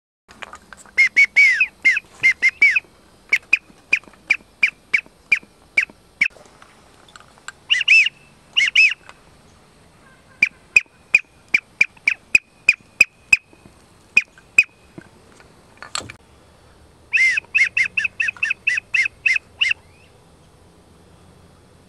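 Goose honking: loud, clipped honks and clucks in quick runs of several calls, with short pauses between the runs. A single sharp knock about sixteen seconds in.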